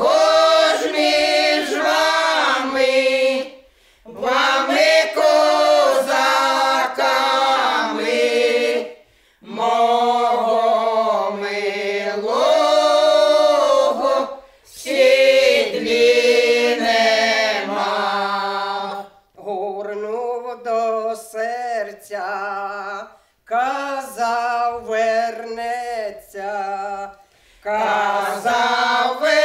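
Women's folk ensemble singing a Ukrainian folk song a cappella, several voices together. They sing in drawn-out phrases of about four to five seconds, with short breaks between them.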